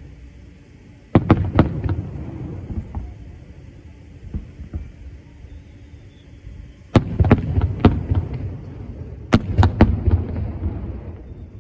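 Aerial firework shells exploding in three volleys of several sharp bangs in quick succession: about a second in, at about seven seconds and near ten seconds. Each volley trails off in a low rumble.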